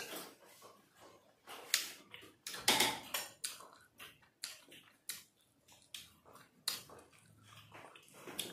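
Eating sounds: metal forks clicking against plates and wet chewing of syrup-soaked rasgulla and gulab jamun, heard as short, irregular clicks and smacks.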